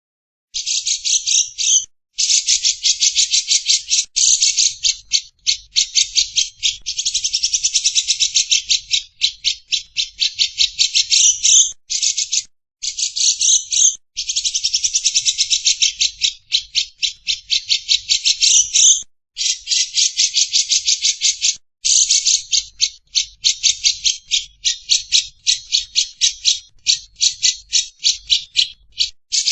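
Lovebird 'ngekek' chatter: long runs of fast, harsh, high-pitched notes, about eight a second, broken by short pauses every few seconds.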